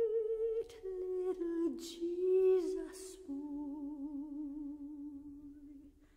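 A solo voice singing slowly. It holds a long note with vibrato, moves through a short phrase of changing notes, then holds a last wavering note that fades away near the end.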